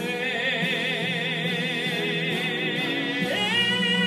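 A long, high sung note with wide vibrato, held over a backing track as the drawn-out final note of the song; about three seconds in the note and the accompaniment move to a new pitch.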